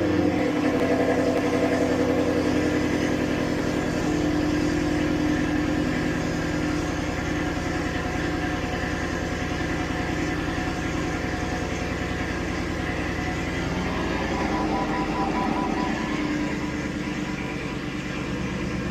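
2016 Ford Mustang GT's 5.0-litre Coyote V8 idling steadily just after being started.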